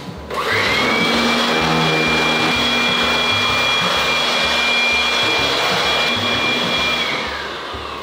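Electric pressure-washer pump running and spraying water up into a ceiling air conditioner inside a plastic catch bag. The spray hisses steadily with a motor whine that rises as it starts about half a second in and falls away as it stops near the end.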